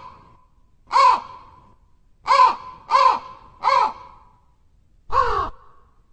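Crow cawing: five separate caws, three of them in quick succession in the middle, the last a little longer.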